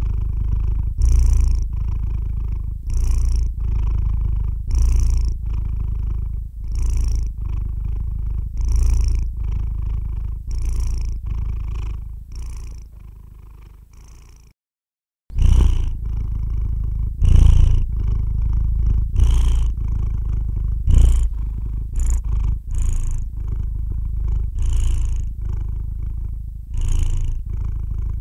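Domestic cat purring in its sleep, recorded close. There is a steady low rumble that swells with each breath, about one breath every two seconds, with a soft breathy hiss on each swell. About halfway through it fades, breaks off for under a second, then starts again.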